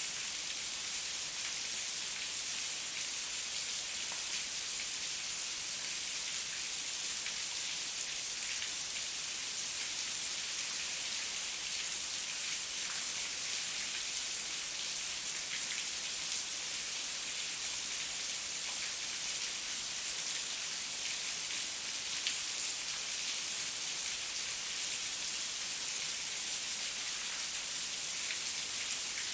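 Heavy rain falling steadily, a dense even hiss dotted with the faint ticks of individual drops.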